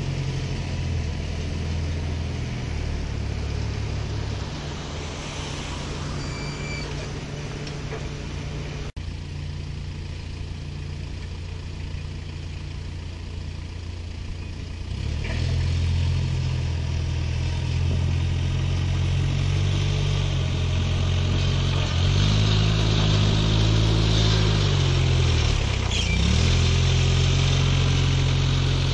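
Semi truck's engine running steadily, growing louder about halfway through. Near the end its pitch rises and falls a couple of times.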